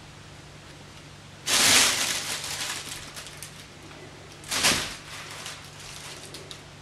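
Rustling and crinkling of a fabric play tunnel as Havanese puppies scramble in and around it, in two bouts: a longer one about a second and a half in and a shorter one near the middle.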